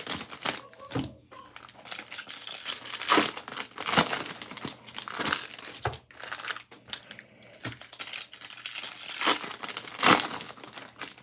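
Bowman Draft card pack wrappers being torn open and crinkled by hand, in irregular crackling bursts, the loudest about three, four, nine and ten seconds in.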